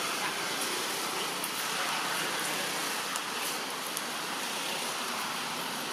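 Steady outdoor background noise, an even hiss with a few faint ticks and no clear single source.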